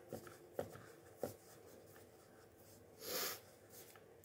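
Fingers pressing and patting crumbly pie-crust dough into a metal pan, with faint rubbing and a few soft taps in the first second and a half. About three seconds in there is a short puff of breath.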